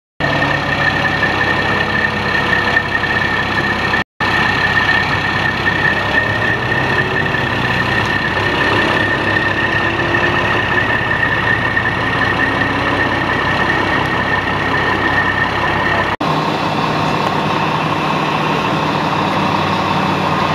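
Heavy engine idling steadily, with a steady high whine over it. The sound drops out for an instant about four seconds in, and again near the end, after which the whine is gone and only the engine hum remains.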